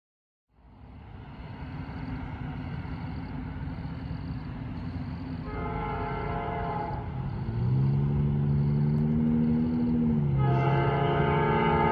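A Norfolk Southern AC44C6M diesel locomotive running light, its engine rumbling and growing louder as it approaches. From about five seconds in its Nathan Airchime P5 five-chime air horn sounds. The upper chimes come first, then the lower ones, then the full chord, which is loudest near the end.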